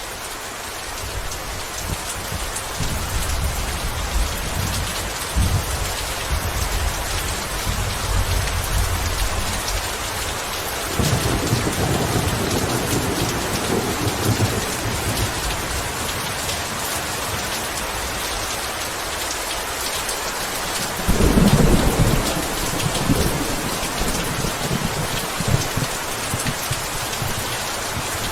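Steady heavy rain with rolling thunder: several long low rumbles swell and fade, the loudest about two-thirds of the way through.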